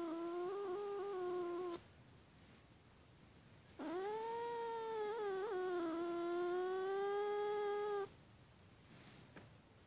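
Domestic cat yowling angrily in long, drawn-out wavering yowls. One ends about two seconds in, and another lasts about four seconds with a brief warble in its middle.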